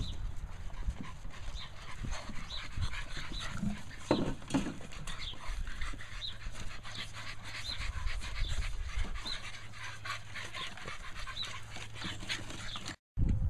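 Several American bully puppies panting, over a steady stream of small quick clicks and crunches.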